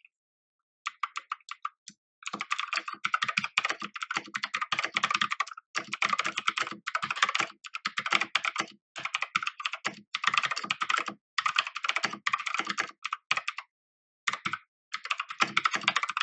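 Typing on an MK Disco TKL mechanical keyboard with clicky blue switches: quick runs of key clicks in bursts with short pauses between them, starting about a second in.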